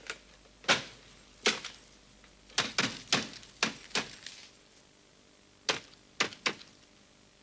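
Telephone buttons being pressed one at a time to dial a number: about eleven short, sharp clicks in uneven groups.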